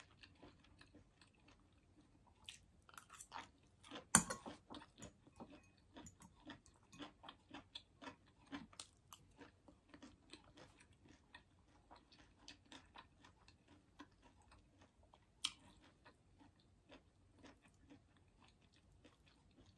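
A person chewing a mouthful of cooked green beans, many small wet mouth clicks. A couple of sharper clicks stand out, about four seconds in and again near fifteen seconds.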